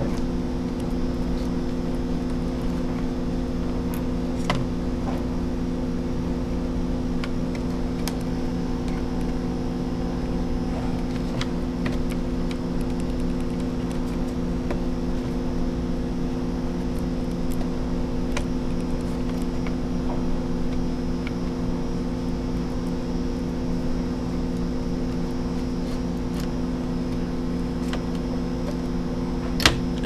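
A steady low machine hum, with a few small clicks and ticks as the laptop's motherboard and fan assembly are handled and pried loose. There is a sharper click near the end.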